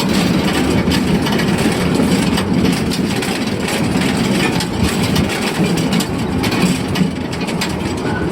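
Amemiya No. 21 forest-railway train rolling along narrow-gauge track, heard from aboard: a steady rumble with many short rail clicks.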